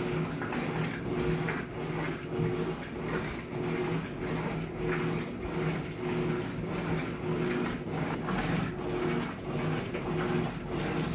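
Electrolux top-loading washing machine agitating a load of clothes: the motor hums in short, regular pulses as the agitator swings back and forth, with water and clothes sloshing in the tub.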